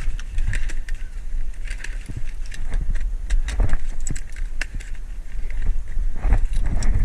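Irregular clicks and rattling of carried gear with footsteps, over a steady low rumble of handling or wind on a body-worn microphone.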